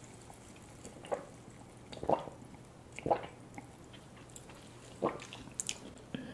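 A person gulping a drink, with four swallows spaced about a second apart.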